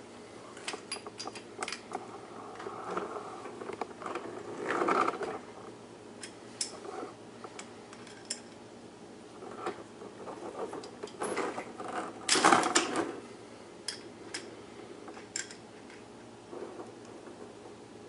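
Scattered clicks and clinks of a wrench and pliers working a brass elbow fitting tight onto a dishwasher water supply line, with a louder clatter about twelve seconds in.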